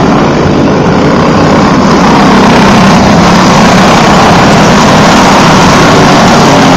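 Several caged dirt-track racing karts running their small engines at high revs as the pack laps the oval. The sound is loud and steady, with the engines overlapping.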